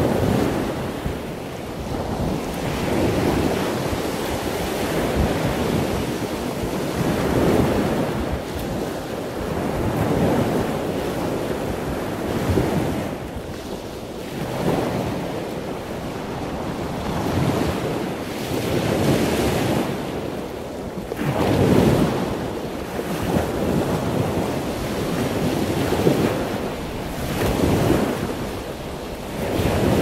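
Surf washing onto a beach, with wind buffeting the microphone; the noise swells and eases every few seconds.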